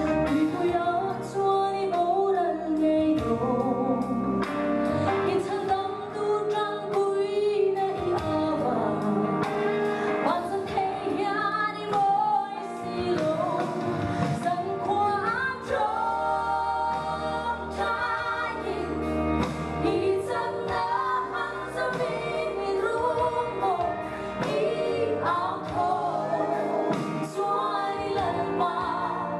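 A woman singing a Mizo gospel song into a handheld microphone, her voice wavering in vibrato on held notes, over instrumental accompaniment with a steady bass.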